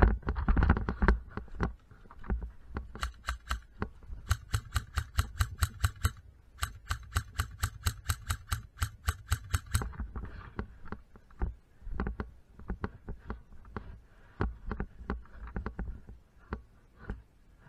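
Footsteps through dry leaf litter with thumps from the worn camera at each step. In the middle come two runs of rapid, even clicking, a few seconds each, with a short gap between them.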